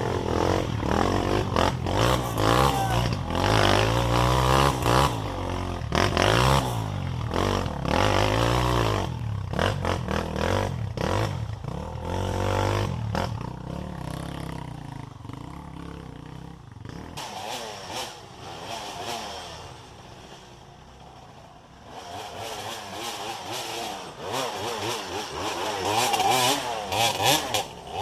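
Off-road trail motorcycle engine revving up and down again and again over rough ground, with knocks and rattles from the bike on the bumps. It eases off to a quieter run for a few seconds past the middle, then picks up again near the end.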